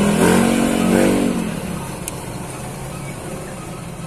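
Small vehicle engine revving up briefly in the first second or so, then dropping back to a steady idle.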